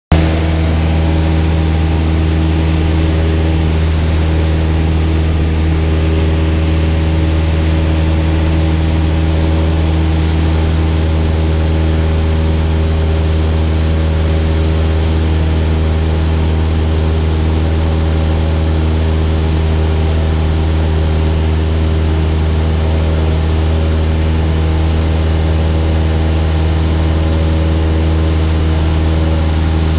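Cessna 172's piston engine and propeller droning steadily in level flight, heard from inside the cabin as a constant low hum with a haze of airflow noise above it.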